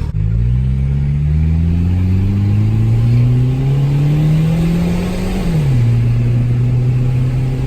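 Turbocharged SR20DE four-cylinder engine of a Nissan Bluebird in a full-throttle pull, its pitch climbing steadily for about five seconds, then dropping quickly at an upshift and holding steady. The pull seemed soft to the crew, who suspect a leak somewhere.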